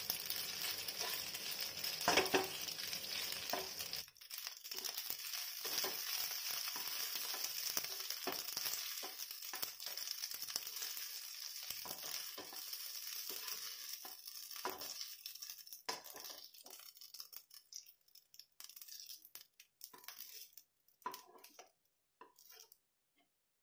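Dry elbow macaroni frying in a little oil in a nonstick kadhai, sizzling steadily while a spatula stirs and scrapes it. Over the second half the sizzle fades to scattered clicks and scrapes as the pasta is pushed out of the pan.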